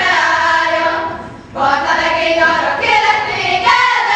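Girls singing a Kartal karikázó folk song together, unaccompanied, as they dance the circle. The singing breaks for a breath about a second and a half in, then the next phrase begins.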